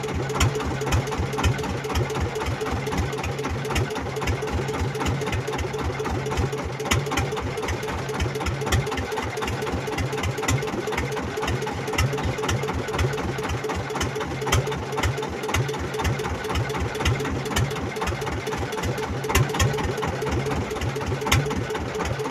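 Small fishing boat's engine running at low speed with a steady, even putter that stays unchanged throughout.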